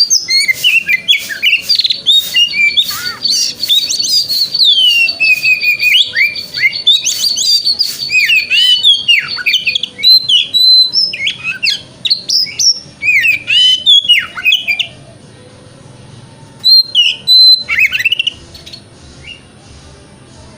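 Oriental magpie-robin singing a fast, varied song of whistles, sweeping and dropping notes and chattering phrases, including a long high held note for several seconds. The song stops a few seconds before the end, with one short last burst.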